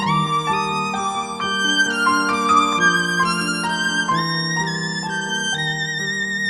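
Violin playing a slow melody with vibrato over sustained lower notes, changing note about every half second to a second.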